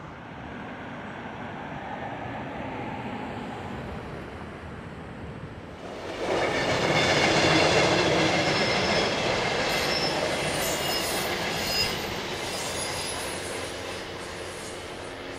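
NCTD Coaster commuter train crossing a steel girder bridge: its rumble grows, then the diesel locomotive and coaches pass about six seconds in, loudest there, with high steady wheel squeal over the rumble that eases off near the end.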